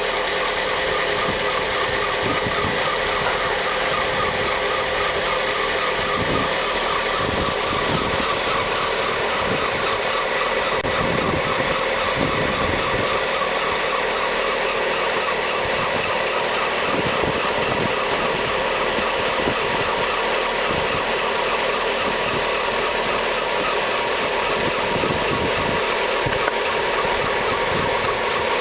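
Volkswagen Gol G5 engine idling with a steady, high-pitched noise from its drive belt. The noise keeps recurring even after anti-noise spray and a belt tension adjustment; the belt's material is suspected.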